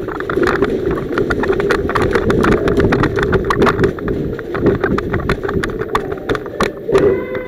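Irregular rapid clicks and knocks over a steady low rumble: an airsoft player's gear rattling and footsteps as they move quickly, picked up by a body- or gun-mounted camera.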